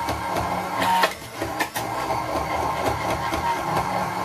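Electric kitchen blender running, puréeing tuna sauce, with brief dips in the motor about a second and a second and a half in.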